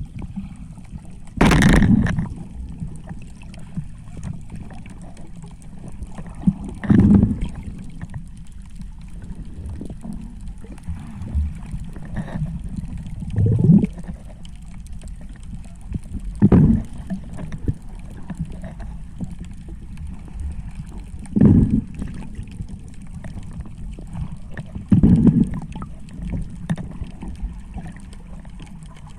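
Muffled underwater rumble with a loud gush of bubbles every few seconds, about six times, typical of a diver breathing out.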